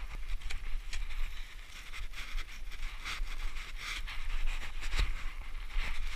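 Mountaineering boots stepping and crunching through snow about once a second, with sharp clicks and a low wind rumble on the microphone.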